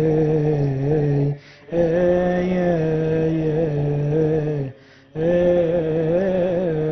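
Coptic liturgical chant: male chanting held on long, slowly ornamented notes without spoken words, breaking off twice briefly for breath.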